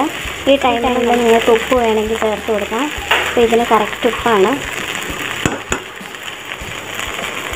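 Spatula stirring fried rice in an aluminium pot: a run of short squeaky scrapes against the pot's side, two or three a second, then a rougher hiss with scattered clicks in the last three seconds.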